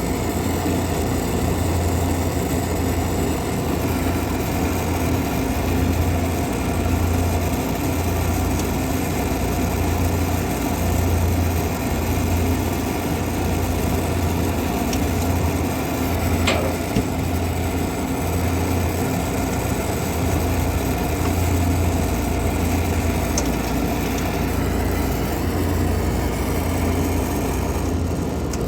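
Air-conditioning machinery running steadily, with a low hum that swells and fades about every one and a half to two seconds over a steady mid-pitched hum, and one brief click partway through.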